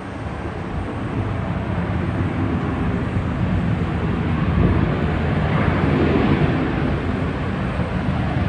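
Distant jet-engine rumble of a Boeing 737-700 with CFM56 turbofans rolling out on the runway after landing, growing louder over the first few seconds and swelling about halfway through.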